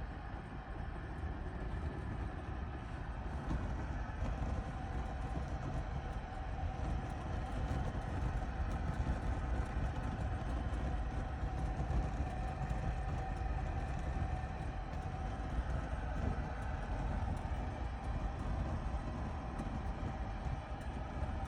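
Wood fire burning in a fireplace: a steady low rumble with faint small crackles scattered through it.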